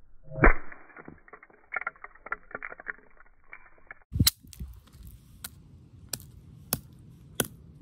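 A mallet smashes a nut on concrete with one loud crack about half a second in, followed by a few seconds of crackling clicks. Then comes a heavy thud and a run of sharp knocks, about one every two-thirds of a second, as the mallet keeps striking the crushed shell on the concrete.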